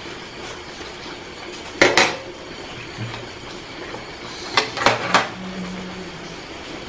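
Cookware clanking as a cooking pan and its lid are handled: two knocks close together about two seconds in, then three more around the five-second mark.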